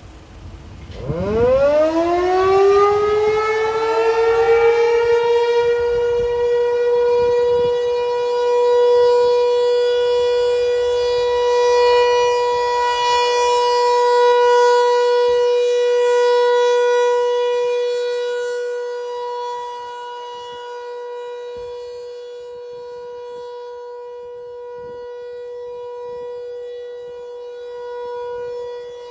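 ASC T-128 electromechanical outdoor warning siren sounding its steady Alert signal during a test. About a second in it winds up quickly from low to a single high tone, which then holds steady while its loudness slowly swells and fades.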